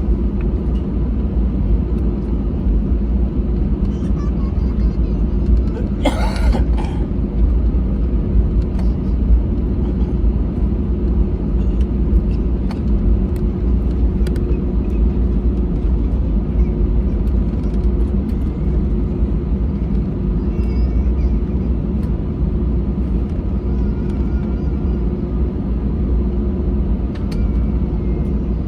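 Steady low rumble of engine and airframe noise inside an Airbus A320 cabin, with a constant hum. A brief clatter comes about six seconds in.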